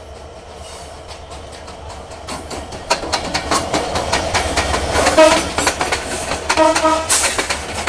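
A train rolling in along the track, its wheels clicking over the rail joints and growing louder. About five seconds in the locomotive gives a short horn blast, and a second one comes about a second and a half later.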